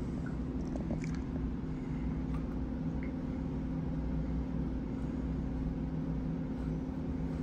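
Steady low machine hum, holding two low tones, with a few faint clicks as the air compressor's cylinder heads are turned by hand on their metal manifold.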